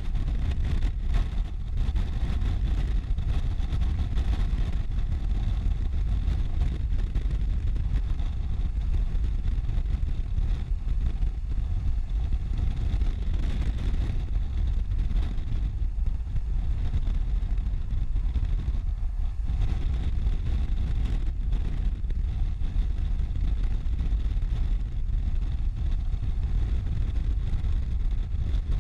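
A police motorcycle riding at motorway speed: a steady low rumble of wind rushing over the microphone, with the engine running underneath it.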